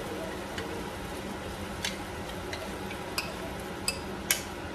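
Chicken pieces sizzling steadily in a hot pan, with a few light clicks from about two seconds in as a cornstarch slurry is stirred in its bowl and poured into the pan to thicken the sauce.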